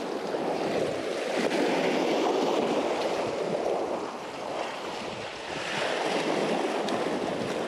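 Sea surf washing and breaking against shoreline rocks, a steady rush that swells and eases, dipping for a moment about four seconds in.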